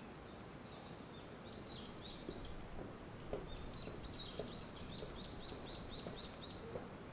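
A small songbird chirping: a few scattered high notes, then a fast run of about a dozen short repeated notes at roughly four a second near the end. Steady low background noise of the open air underneath.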